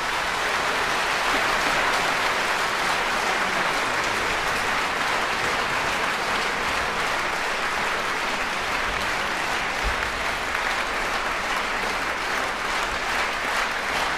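Concert audience applauding after an orchestral piece: steady, dense applause, with individual claps standing out more near the end.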